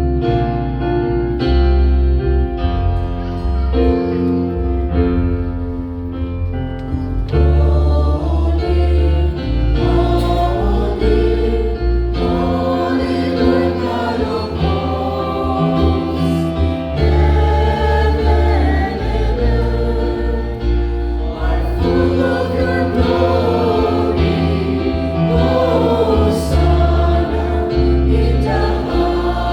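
Church choir singing a hymn with keyboard accompaniment. The keyboard plays alone for the first several seconds before the voices come in.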